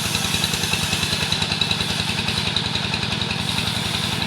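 Engine of a wood-sawing machine running steadily at an even, fast beat, with a thin high whine over it.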